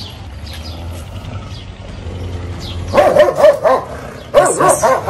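A dog barking in quick runs of short barks, the first starting about three seconds in and another about a second later.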